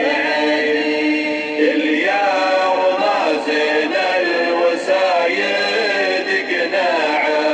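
A man chanting a Nabati poem in the drawn-out Bedouin shaila style, unaccompanied, in long held notes that waver and bend in pitch.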